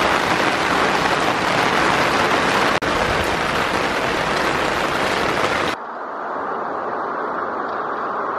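Heavy rain falling, a loud, even hiss. About six seconds in it cuts suddenly to a quieter, duller steady rush.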